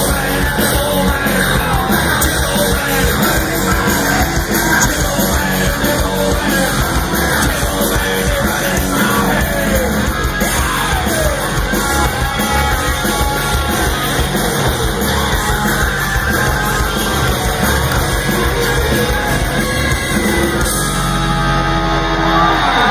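Heavy metal band playing live: distorted guitars, pounding drums and a yelled vocal, heard through the concert PA from within the crowd. About two seconds before the end the singing stops and the band holds a ringing final chord.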